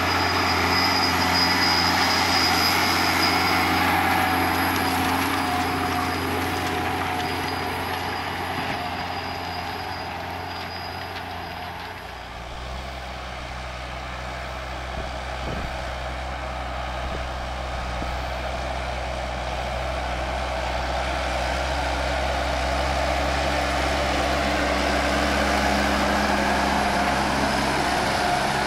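Fendt Vario tractor engine running steadily under load while pulling a reversible plough, with a high whine over the first few seconds. The sound fades as the tractor draws away, then grows louder again as it comes near.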